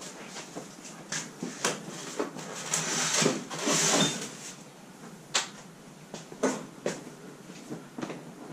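Small tools and parts being moved around on a wooden workbench: scattered clicks and knocks, with a longer rustling scrape about three to four seconds in and a sharp click a little after five seconds.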